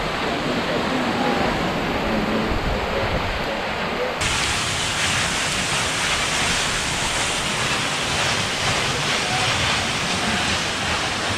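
Steady rush of a tall waterfall pouring off a sandstone cliff, swollen with spring snowmelt. About four seconds in, the rush abruptly turns brighter and hissier.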